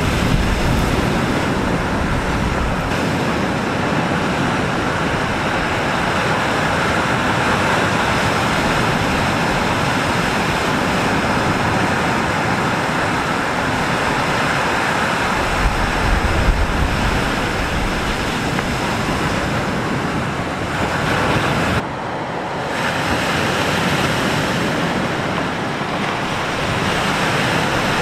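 Lake Superior surf breaking steadily, with strong wind buffeting the microphone in gusts.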